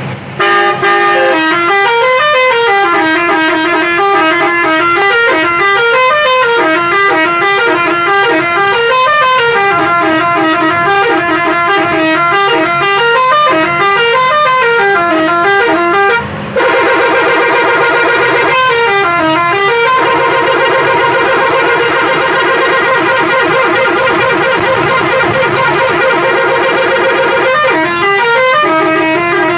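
Musical bus horn playing a looping tune of stepped notes rising and falling, for about the first half. It breaks off for a moment, then holds as a steady multi-note blast, broken twice by a short run of the tune.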